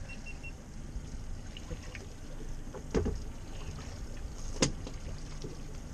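Two knocks on a small boat's deck about a second and a half apart, the first a dull thud, over steady low water and wind noise, as a freshly caught yellowtail is being dispatched.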